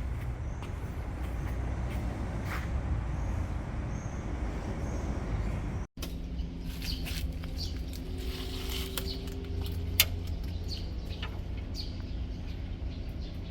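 Land Rover Defender's rebuilt engine running on a test drive, a steady low rumble. It cuts out briefly about six seconds in, and comes back as a steadier hum with a faint whine that climbs a little in pitch. Scattered light clicks, with one sharp click near the end.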